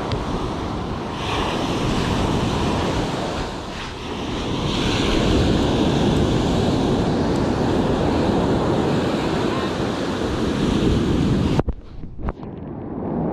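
Surf breaking and washing up the shore, swelling and easing, with wind buffeting the microphone; the sound drops away suddenly near the end.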